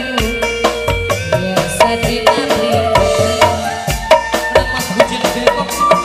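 Live singa depok accompaniment music: hand drums struck in a quick, busy rhythm under a bending melody line.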